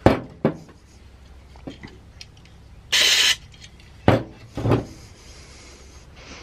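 A brief hiss of aerosol parts cleaner sprayed into a chainsaw recoil starter, about three seconds in, to flush oil out of its slipping friction clutch. A couple of clicks come near the start, and two knocks from handling the metal starter housing about four and five seconds in.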